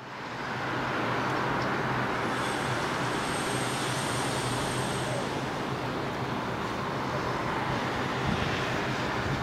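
Steady rumble of an Ukko-Pekka steam locomotive approaching from a distance, with a low hum underneath and a faint high whine for a few seconds in the middle.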